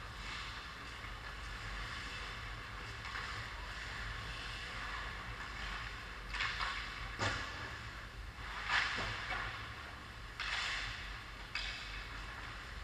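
Ice hockey rink ambience: a steady hiss over a low hum, broken by a few short scrapes and a sharp knock about seven seconds in, from skates and sticks on the ice.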